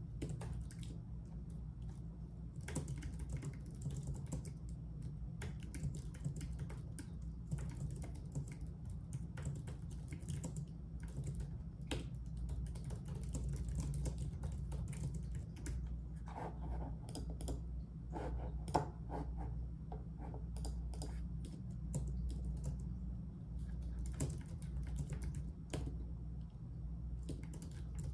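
Typing on a computer keyboard: irregular runs of key clicks with short pauses, over a steady low hum. One click about two-thirds of the way through is sharper than the rest.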